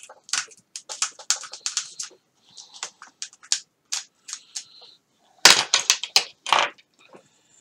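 Foam being cut and picked out with a knife: a run of irregular crackling snaps and clicks, with a louder, denser burst of crackling about five and a half seconds in.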